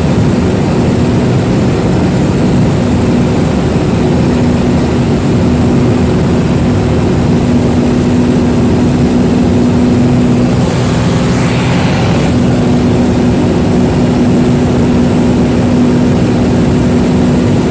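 Pitts aerobatic biplane's piston engine and propeller running steadily in cruise, a loud constant drone heard from inside the open-sided cockpit. A brief rush of hiss comes about eleven seconds in.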